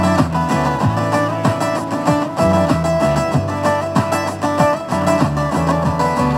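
Acoustic guitar played solo and without singing: a run of quick picked notes with sharp attacks over a moving bass line.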